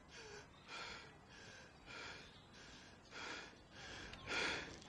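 A man panting out of breath after running: quick, hard breaths, roughly two a second, growing louder near the end.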